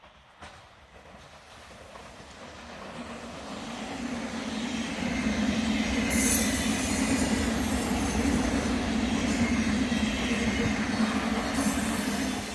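A train rolling past on yard tracks, growing louder over the first five seconds, then running loud with a steady low drone. Brief high-pitched wheel squeals come about six seconds in and again near the end.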